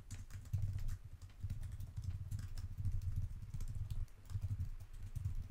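Typing on a computer keyboard: a fast, uneven run of keystrokes with a couple of short pauses.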